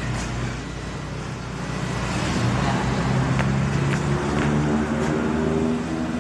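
An engine running, rising in speed and getting louder about two seconds in.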